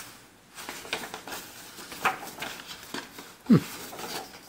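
Paper rustling as an accordion-folded strip of old postcards is opened out by hand. About three and a half seconds in, a brief low sound falls in pitch.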